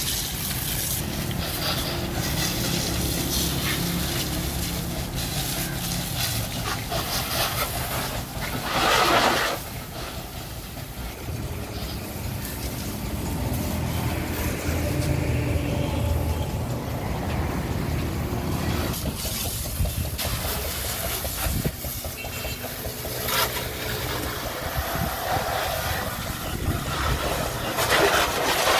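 A pressure washer jet hissing as it sprays water over a truck's chassis, wheels and tipper body, over a steady low motor hum. The spray noise swells loudly twice, about nine seconds in and again near the end.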